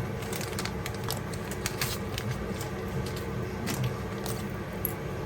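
Irregular light clicks and taps of small metal jewellery and tools being handled at a jeweller's bench, over a steady low hum.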